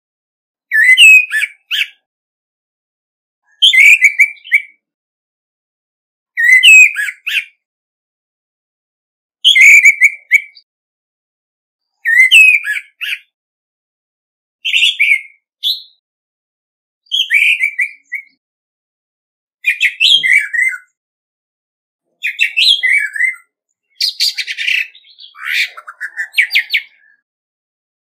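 Male orange-headed thrush singing its challenge song. About ten short, varied phrases of about a second each come every two to three seconds with silence between. The last phrase runs longer, with a quick run of rapid notes.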